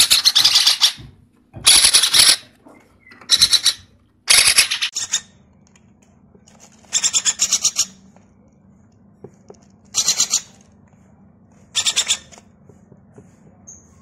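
Parakeet chicks giving harsh, raspy begging calls in about seven separate bursts of half a second to a second each: hungry hand-reared chicks begging for food at the feeding syringe.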